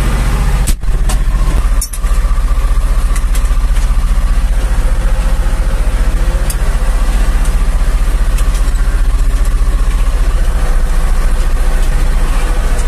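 Zetor 5011 tractor's three-cylinder diesel engine running steadily and loud, heard from inside the cab while pulling a two-furrow plough. Two brief clicks come in the first two seconds as the cab door is worked.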